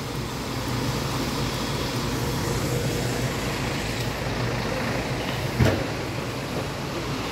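Steady low mechanical rumble and hum of truck engines and grain-handling machinery, with a single sharp thump about five and a half seconds in.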